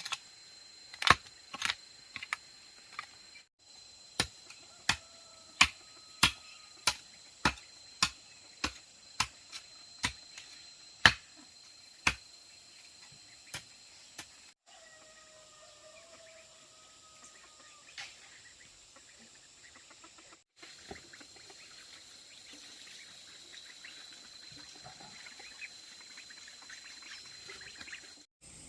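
A steady run of sharp strikes, about three every two seconds, through the first twelve seconds or so, with a chicken calling over them twice.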